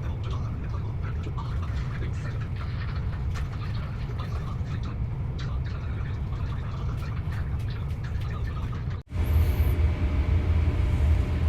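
Steady low rumble of background noise. It breaks off about nine seconds in and comes back louder, with a brief high chirp just after.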